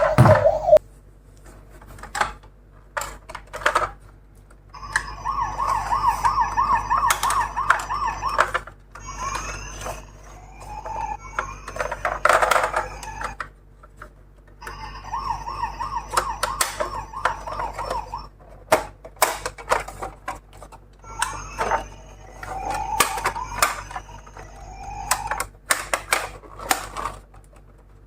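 Toy ambulance's electronic siren sounding in four bursts of a few seconds each, a fast warbling wail, between sharp clicks and clatter of the miniature cars running down a slope.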